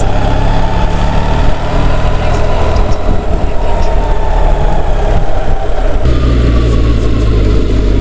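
BMW R 1300 GS boxer-twin engine running at road speed, heard on board over wind and wet-road tyre noise, with a thin steady whine. About six seconds in the bike changes down a gear and the engine rumble gets deeper and louder.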